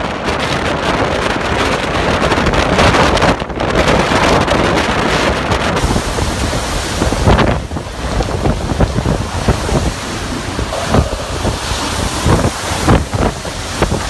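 Storm-force wind blowing hard across the microphone in heavy, continuous gusts. About halfway through, the sound turns choppier, with short, sharp gusts and knocks.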